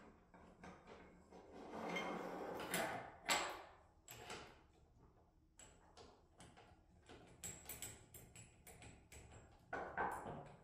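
Hands working a control cable and its metal fittings onto a hydraulic control valve on a tabletop: rustling and sliding about two seconds in, a sharp clack a little after three seconds, then a string of light clicks and taps from the small metal parts.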